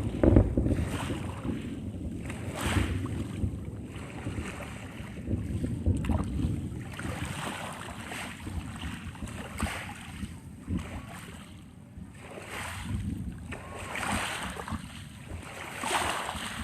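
Waves washing and splashing at irregular intervals of a second or two, over a steady low rumble of wind buffeting the microphone. The waves are rough.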